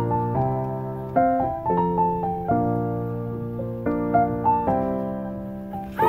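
Soft solo piano background music, single notes and chords struck about every half second to a second and left to ring and fade.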